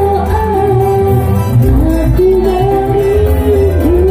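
A live band plays through loudspeakers: keyboard, electric guitar and a heavy bass. A woman sings a wavering melody into a microphone over it.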